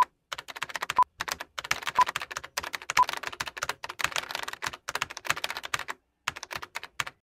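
Computer keyboard typing sound effect: rapid, irregular key clicks in runs with short pauses, and a brief beep about once a second during the first three seconds.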